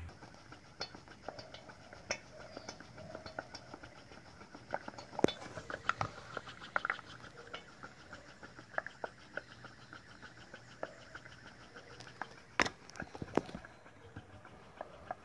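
Homemade pop-pop steam engine running, its flat bolted aluminium boiler ticking in a rapid, even rhythm as it pulses water through its copper tubes, with scattered louder sharp clicks.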